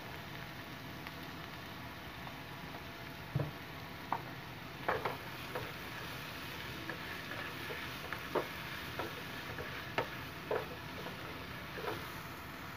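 Sliced onions sizzling steadily as they fry in oil in a non-stick pan. From about three seconds in, a spatula stirring them adds scattered short scrapes and taps against the pan.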